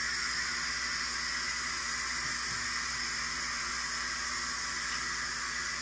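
A steady, even hiss that does not change. No distinct knife or cutting sounds stand out.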